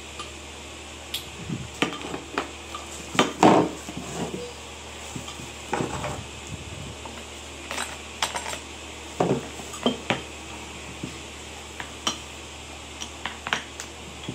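Irregular clinks and knocks of hard objects being handled and set down while items are unpacked, loudest about three and a half seconds in.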